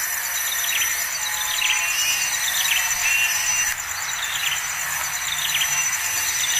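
Short, falling bird chirps repeated roughly once a second over a steady, high, pulsing insect trill.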